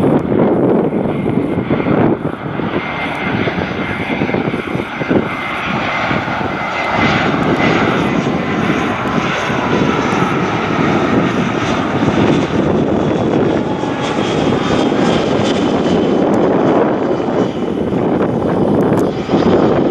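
Airbus A320 jet airliner on final approach, its twin turbofan engines running at low approach power: a steady, continuous jet roar with a faint whine running through it.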